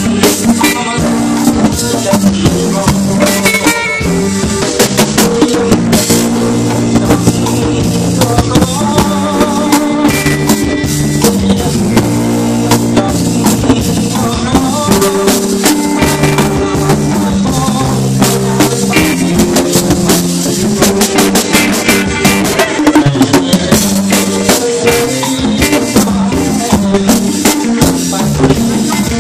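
Live band music amplified through a PA, with a drum kit keeping a steady beat and a man singing into a microphone.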